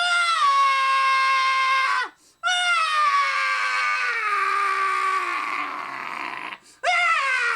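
A person's voice making high-pitched screaming wails: three long held notes, each one starting high and sliding downward, the middle one the longest with a slow falling pitch.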